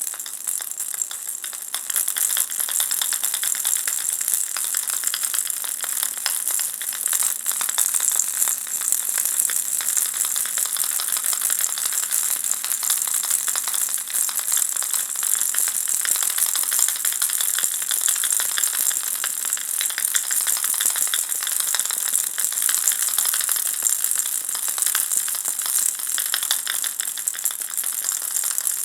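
Ball-shaped baby rattle shaken without pause: a dense, fast, bright rattling that grows louder about two seconds in and then keeps on evenly.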